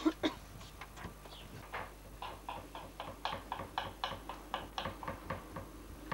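Knife chopping on a wooden cutting board: a run of light, irregular taps, about three or four a second.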